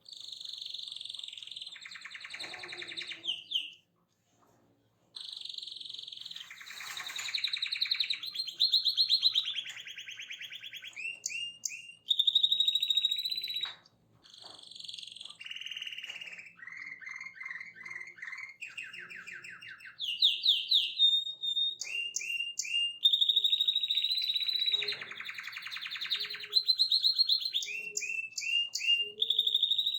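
A songbird singing a long, varied song of rapid high trills and chirps, with a brief break about four seconds in.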